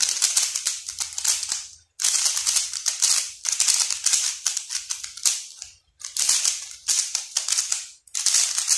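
QiYi MoFangGe 3x3 speed cube being turned fast, its plastic layers clicking and clacking in quick runs of turns broken by brief pauses.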